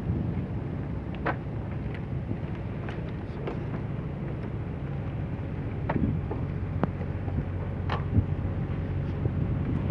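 Boat engine running steadily with a low hum, with wind on the microphone.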